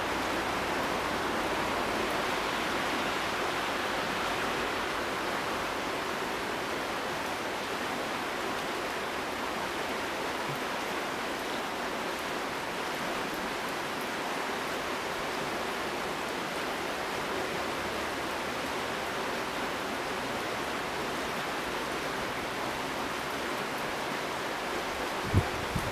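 Steady rushing noise, a little stronger in the first few seconds, with a brief knock near the end.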